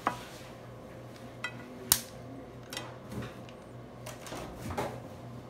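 Dry, uncooked lasagna sheets clicking and tapping as they are handled and laid into a glass baking dish: a handful of short sharp clicks, the loudest about two seconds in, over a faint steady hum.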